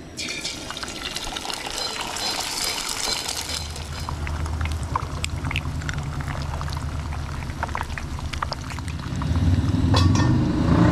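Eggs frying in hot oil in a non-stick pan: a dense crackling sizzle with spattering pops that starts as the first egg hits the oil and keeps going as more eggs are cracked in. Near the end a stainless steel lid is set on the pan.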